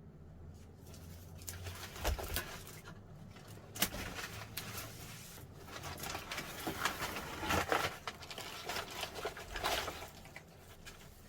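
Irregular handling noise: rustling and scraping with scattered sharp knocks, one of the clearest about four seconds in.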